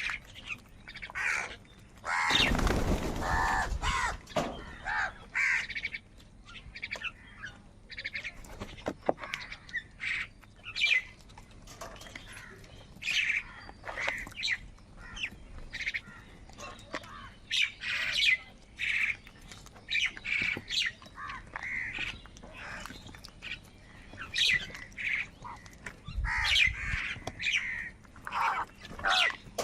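Crows cawing again and again in short harsh calls, several birds overlapping. About two seconds in, a louder burst of noise with a low rumble lasts for a second or two, and a shorter low rumble comes near the end.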